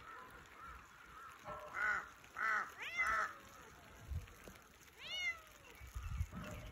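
Calico Persian cat meowing: three meows in quick succession, then one more a couple of seconds later. A few low thuds come in between.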